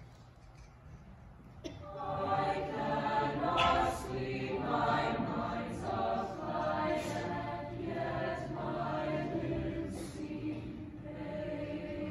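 Mixed choir singing, faint at first and then swelling into full voice about two seconds in.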